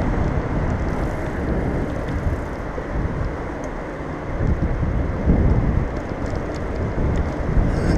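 Steady rushing noise of a bicycle ride on wet pavement: wind buffeting the camera's microphone, mixed with the hiss of tyres on the wet surface.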